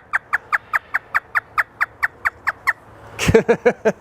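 African grey parrot doing its imitation of a hysterical laugh: a fast run of short notes, each falling in pitch, about five a second for nearly three seconds, then a few louder voice-like notes near the end.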